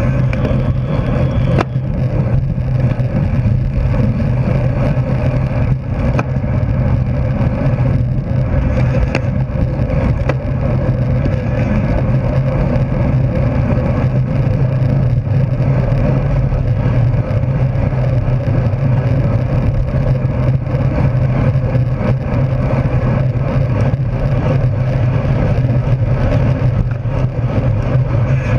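Steady rush of wind over a bike-mounted camera's microphone, with the hum of road-bike tyres on asphalt, riding at race speed in a pack.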